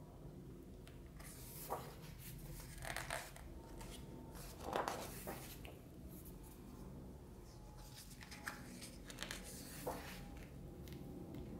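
Pages of a large hardcover art book being turned and handled: soft paper rustles and swishes, several in a row, the loudest about five seconds in.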